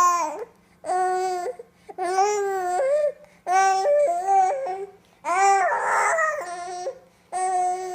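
A baby crying in a series of long wails about a second each, some stepping up and down in pitch, with short pauses between, over a steady low hum.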